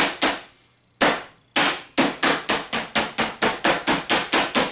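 Meat pounder hammering chicken breast fillets flat through plastic wrap on a cutting board: rapid sharp strikes, about five a second, after a short break early on with one lone strike in it.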